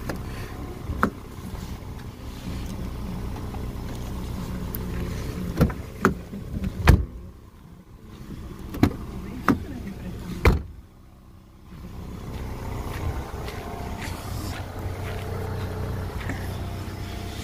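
A car engine idling steadily, with several sharp knocks and scrapes as snow is cleared off the car's window glass.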